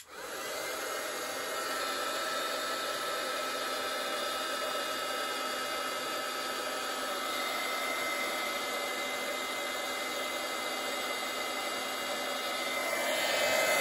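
Embossing heat tool running: a steady rush of blown air with a faint high whine, starting suddenly and growing louder near the end. It is heating white embossing powder on stamped snowflakes to melt it.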